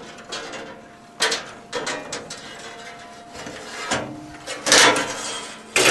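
Irregular scraping, rubbing and clicking as a fiberglass fish rod is worked inside a metal-stud drywall wall and pulled out through the jack hole by hand, with the loudest scrape a little before the end.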